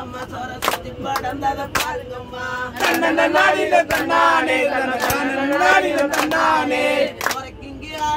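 A group sings a Tamil kummi folk song in chorus, with sharp hand claps in time about once a second. The singing swells louder from about three seconds in until near the end.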